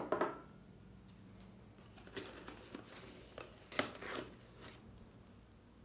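A bone china teacup set down on a wooden table with a sharp clink that rings briefly near the start. About two seconds in come rustling, scraping and a few small clicks as a saucer is worked out of its cardboard box insert.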